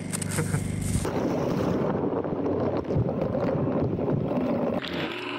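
Small tethered underwater drone in the water of a sea-ice hole: a dense rushing, churning water noise begins about a second in, after a steady hum with hiss. Near the end a steady motor tone joins in, as from the drone's thrusters.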